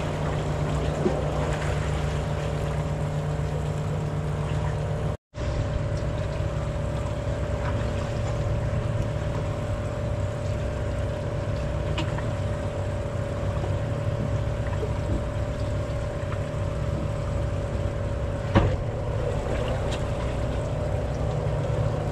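Boat engine running steadily: a low, even hum with a steady higher tone over it. The sound cuts out for an instant about five seconds in.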